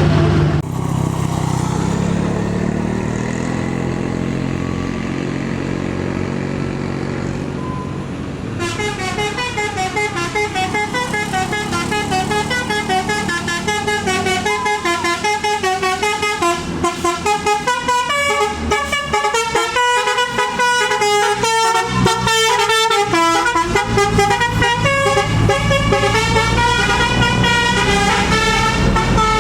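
A tour bus's engine running, then from about eight seconds in its multi-tone telolet horn plays a fast melody of stepping notes that keeps going to the end.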